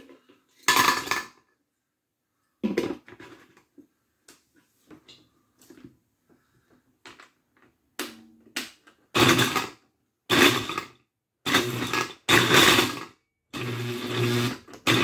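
Pencils clatter into a glass blender jar near the start. Later the blender is switched on in five or six short pulses, its motor running with the whole pencils rattling and knocking against the blades and the glass jar.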